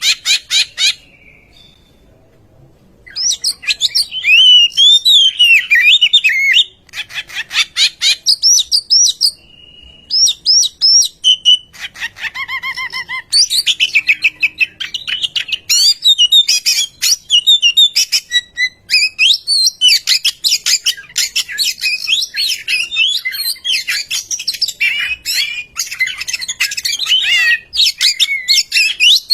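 Oriental magpie-robin singing a long, fast run of varied whistles and chattering notes, with a short pause about a second in.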